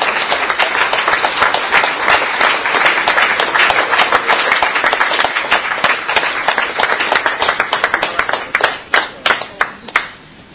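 Room of guests applauding, a dense clatter of clapping that thins to a few scattered claps near the end and then stops.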